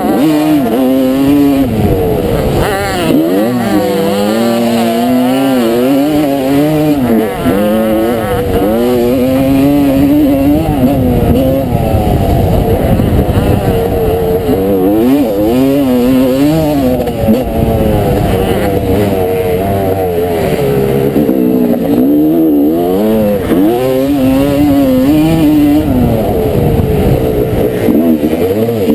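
1989 Honda CR250R's 250 cc single-cylinder two-stroke engine under race load, its revs rising and falling again and again every second or two.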